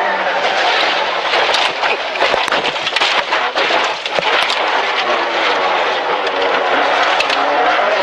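Rally car engine running hard at high revs, heard from inside the cabin, its pitch rising and falling with the throttle. Dense road noise is mixed with frequent sharp knocks and rattles against the body.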